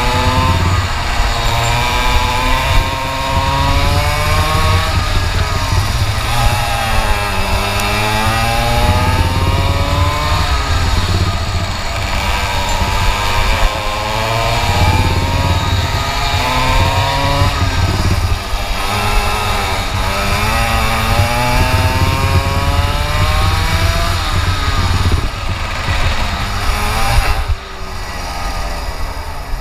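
125 cc two-stroke kart engine at racing speed, its pitch rising under acceleration and falling off into the corners, again and again. Near the end it falls away as the kart slows right down.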